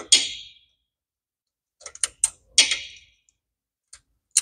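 Pliers and hand tools clicking and clinking against metal while an old helicoil is worked out of a cylinder's spark plug hole: a few sharp clicks with short ringing tails, one just after the start, a small cluster about two seconds in and another near the end.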